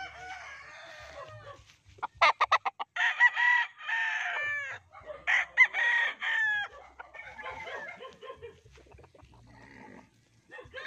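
Gamefowl roosters crowing: two loud crows in close succession about three and five seconds in, just after a quick run of sharp flapping strokes. Quieter clucking and calls from other birds fill the rest.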